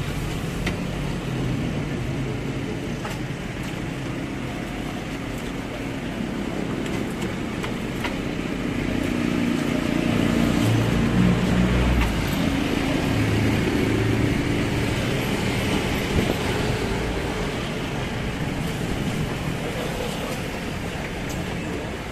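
Street traffic running steadily, with a motor vehicle's engine louder for several seconds about halfway through as it passes close.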